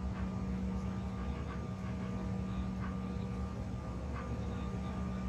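Steady hum of a Bombardier CRJ1000 airliner cabin at the gate during boarding, the air-conditioning and aircraft systems running with a constant low drone.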